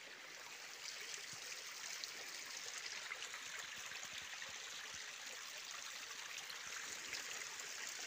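Small spring-fed forest stream running steadily, a faint, even rush of water.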